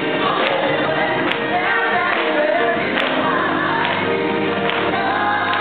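Gospel praise team of men and women singing together into microphones, sustained voices in harmony, with a few sharp hits in the accompaniment.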